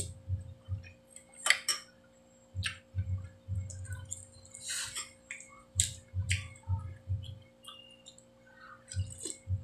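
Close-up eating sounds of spicy chicken noodle soup: chewing in short runs, slurps of broth from a spoon, and a few sharp clicks of a metal spoon on the bowl.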